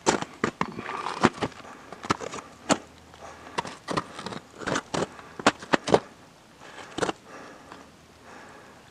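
Irregular crunching steps on rough, gritty glacier ice, dense for the first few seconds and sparser toward the end.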